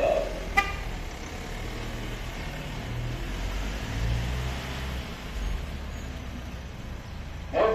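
Cordless electric air pump's compressor running, a steady low drone, with a single sharp click about half a second in.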